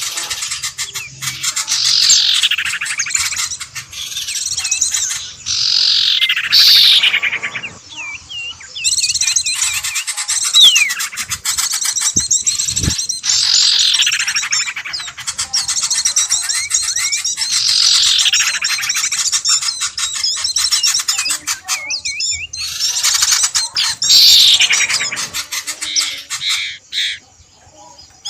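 Recorded wild bird calls played as a bird-luring track: a loud call that falls in pitch, repeated every four to six seconds, over continuous busy chirping and twittering.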